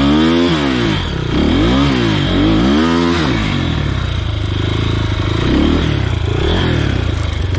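Motorcycle engine revved hard up and down about three times, then running on under load as the rider tries to climb a rough, steep off-road track.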